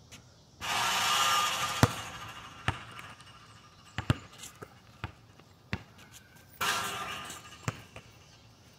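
A basketball shot reaching the outdoor hoop with a loud noisy rush that fades over about a second and a half, then the ball bouncing on the asphalt court: one hard bounce, followed by several lighter ones. A second similar rush comes about six and a half seconds in.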